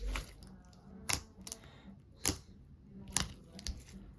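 Fluffy slime being pressed and stretched by hand, giving about five sharp clicks and pops.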